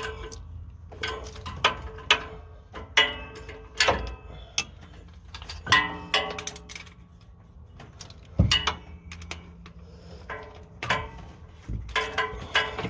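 Hand tools and metal parts clinking and clicking in a truck's engine bay, in irregular knocks, some with a short metallic ring.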